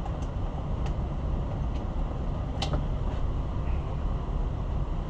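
Steady low rumble of machinery or ventilation-type background noise, with a few faint clicks of small parts being handled.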